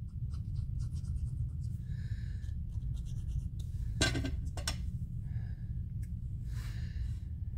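Light scratching and small clicks of a glue applicator tip and paper pieces being worked by hand, with two sharper taps about four seconds in, over a steady low hum.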